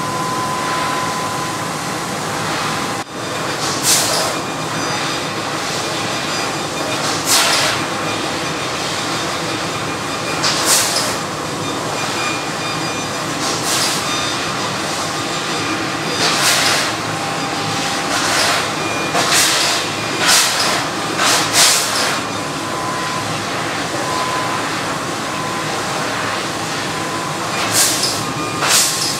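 Eagle eSmart 6 kW fiber laser cutting machine at work on sheet metal: a steady hiss and hum of cutting, with short, sharp hissing bursts every few seconds.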